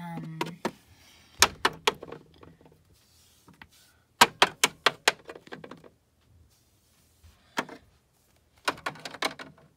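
Plastic Littlest Pet Shop figurines tapped and hopped on the plastic floor of a toy dollhouse: sharp little clicks in groups, with a quick run of about five taps around the middle and a few more near the end.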